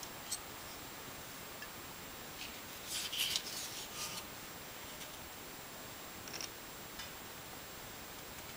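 Hands handling a clear plastic kit sprue and its plastic bag: a short spell of crisp crinkling and rustling about three seconds in, with a few small clicks, over a steady faint hiss.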